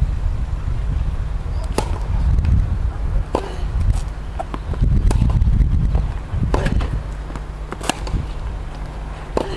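Tennis rally: a ball struck by rackets back and forth, about six sharp hits roughly a second and a half apart, with fainter ball bounces between them, over a steady low rumble.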